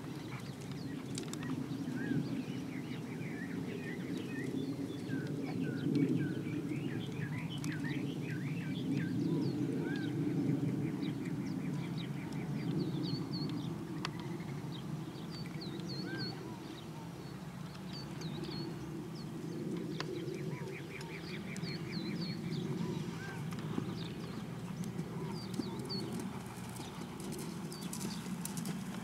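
Small birds chirping and trilling again and again over a steady low rumble of noise. Near the end, a horse's hoofbeats on the dirt footing as it trots close by.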